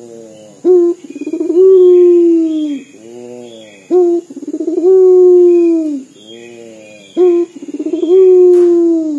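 Caged puter dove cooing over and over in a loud, vigorous song: each phrase is a short sharp note followed by a long, drawn-out coo that sinks at the end, three times, with soft rolling coos between. The long coo is the crying-like voice prized in a puter.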